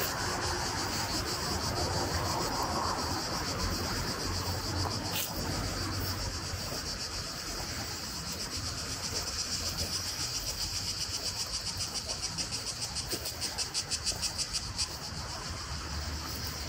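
Insects shrilling steadily in the summer heat, a high, continuous chorus that turns into a quick, regular pulsing from about halfway through, over a faint low rumble.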